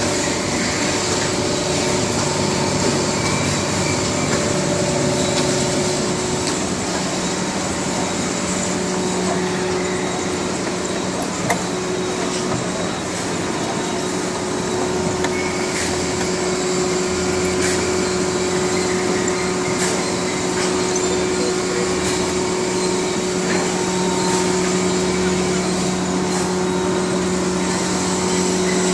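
Compost-processing machinery running: a rotary drum dryer, then a rotary drum sieve turning. It is a steady mechanical drone with a couple of held hum tones and scattered small ticks, and one higher hum drops out about six seconds in.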